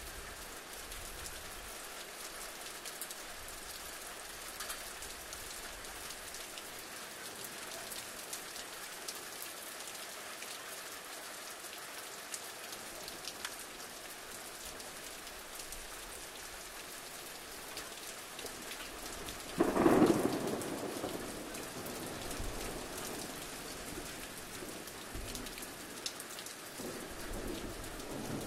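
Steady rain with a roll of thunder about two-thirds of the way through, which breaks suddenly and fades over a couple of seconds.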